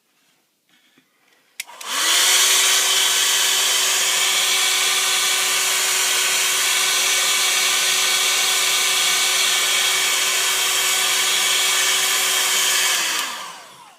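Electric hot-air blower switched on with a click, running steadily with a constant fan hum for about eleven seconds, then winding down near the end. It is heating the adhesive that holds a phone's touchscreen digitizer in its frame, to soften it.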